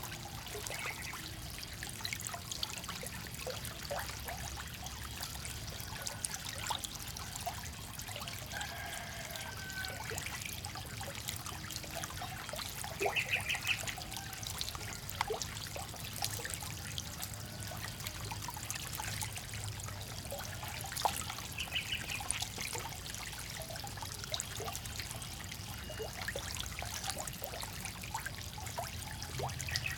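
Water trickling and splashing in a shallow pond crowded with farmed frogs, with many small scattered splashes and clicks as the frogs shift about. Twice, a brief high rattling call sounds.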